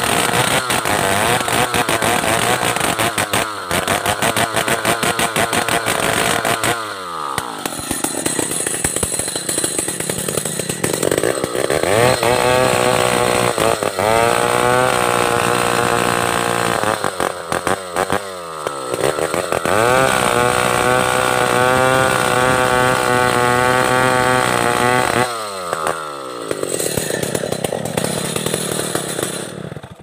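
Stihl 070 two-stroke chainsaw running at full throttle as it rips lengthwise along a large log. The engine note drops off three times and revs back up into the cut each time, and the sound cuts off suddenly at the very end.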